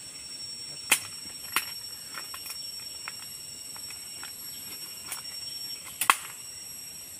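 Steady high-pitched drone of insects, broken by a few sharp snaps and fainter ticks, the loudest about a second in and just after six seconds. The snaps come from the branches of a lime tree being pulled as the limes are picked.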